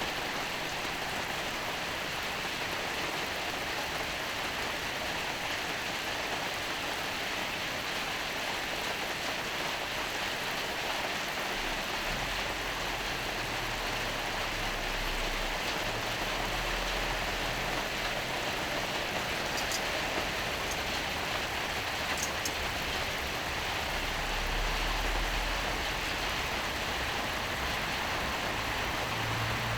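Skirt steak sizzling on a hot iron griddle, a steady hiss. A low hum joins in about twelve seconds in.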